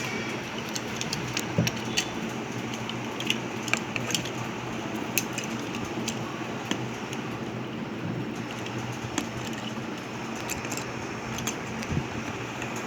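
Scattered small plastic clicks and taps, one or two a second, from a transforming toy car being handled, over a steady background hum.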